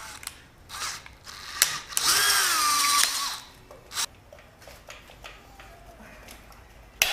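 Electric drill boring into a curved metal bracket: the motor whines up and then drops in pitch as it loads, with a few sharp clicks. Near the end there is a sudden loud crack as the drill bit catches on the uneven metal.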